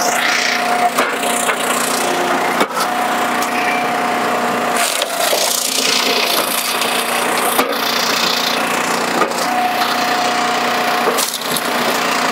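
Hydraulic log splitter forcing a northern red oak round through a 7-way box wedge. The wood cracks and splinters repeatedly over the steady running of the machine, with a whine that comes and goes.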